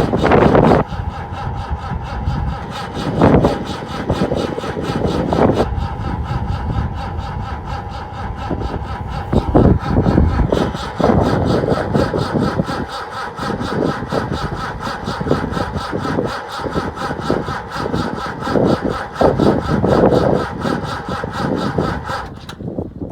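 Starter motor cranking a Nuffield six-cylinder engine for about twenty seconds without it starting: a rapid, even chugging over a steady whine. The cranking stops shortly before the end.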